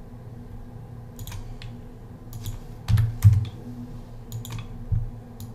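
Computer keyboard being typed on in short, irregular keystrokes, the two loudest about three seconds in, over a faint steady hum.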